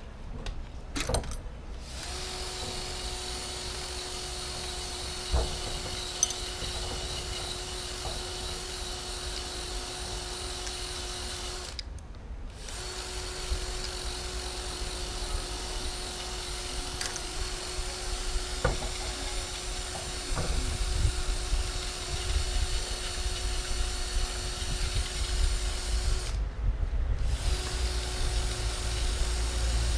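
A steady machine hum, even in pitch, that cuts out twice for about a second. A few sharp clicks and a low rumble, louder in the second half, lie under it.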